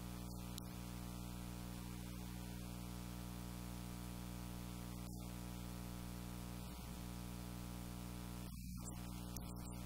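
A steady low drone of several pitches, held unchanged throughout, over a constant hiss.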